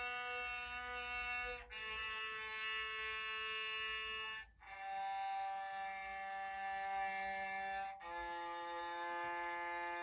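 Yamaha SVC-210 electric silent cello bowed in long, slow held notes, each lasting about three seconds and stepping down in pitch.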